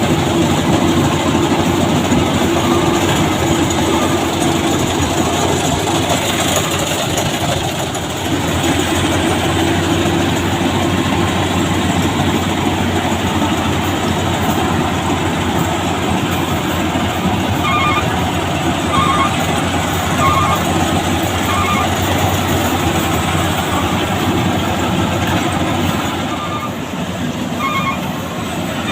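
BIMO rice combine harvester running: a steady, loud mechanical din of engine and threshing machinery. In the last third, short beeps repeat about once a second over it.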